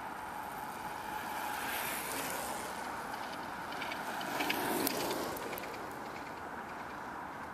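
A recumbent trike passing close by on tarmac: its tyre and drivetrain noise swells to its loudest about four to five seconds in, with a few sharp clicks as it goes by, then fades away.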